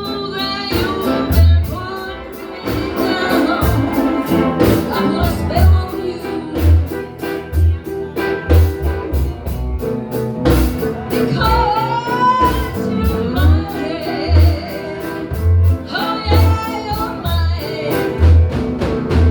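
Live blues band playing a slow number, with a steady low kick-drum beat under wavering lead phrases that come in at the start, about halfway through and again near the end.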